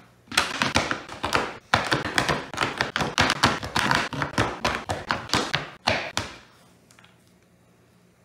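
Kitchen knife chopping semisweet chocolate bars on a plastic cutting board: a fast, steady run of blade knocks, several a second, that stops about six and a half seconds in.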